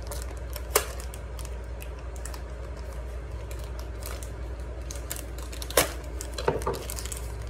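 A package being handled and opened by hand: scattered light crinkles and clicks, with sharper snaps about a second in and again near six seconds, over a steady low hum.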